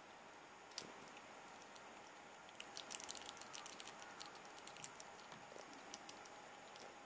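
A Père David's rock squirrel chewing a mouthful of banana: faint, quick wet clicks and smacks, a single one about a second in, then a dense run in the middle that thins out toward the end.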